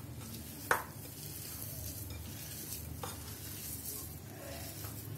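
Hands squishing and kneading mashed boiled potatoes with soaked poha in a ceramic plate, a soft continuous mashing sound. A sharp tap sounds less than a second in, and a fainter one about three seconds in.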